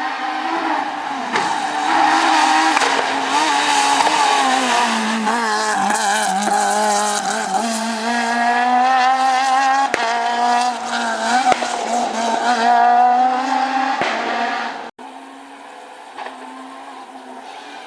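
Renault Clio S1600 rally car's naturally aspirated 1.6-litre four-cylinder driven hard. The engine pitch climbs and drops repeatedly as it is revved and shifted through the gears. It cuts off suddenly near the end, and a quieter, steadier engine sound follows.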